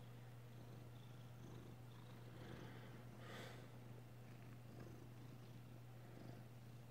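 Near silence: room tone with a steady low hum and a faint soft rush about three seconds in.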